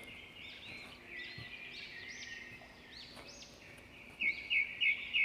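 Small birds chirping and twittering in the background, with a louder quick run of about six short chirps near the end.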